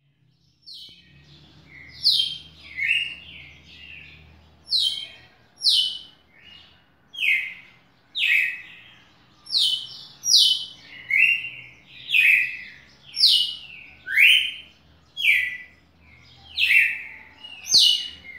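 Red-cowled cardinal (galo-de-campina) singing: a steady run of clear whistled notes, about one a second, each sliding down in pitch.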